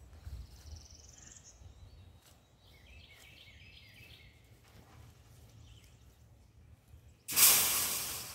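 Wire livestock panel set down onto a stack of metal panels on a trailer: a sudden loud metal clatter about seven seconds in, dying away over about a second. Birds chirp faintly before it.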